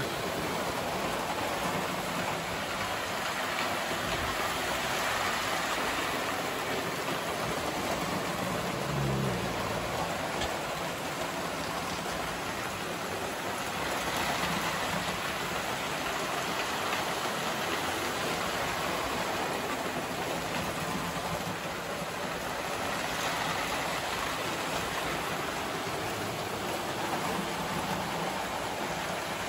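Several large-scale toy trains running around a multi-track layout: a steady rolling rumble and hiss of metal wheels on metal track mixed with their motors.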